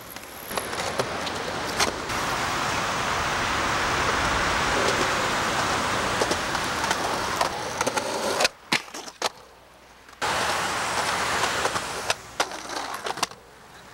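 Skateboard wheels rolling over concrete with a steady rumble, broken by sharp clacks of the board's tail popping and landing: one early on, a cluster about two-thirds through, and several near the end. The rolling drops away for a couple of seconds before starting again.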